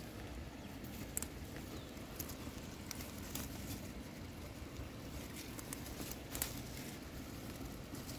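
Mint stems and leaves rustling and snapping as they are plucked by hand, in scattered small clicks, over a steady low rush of stream water.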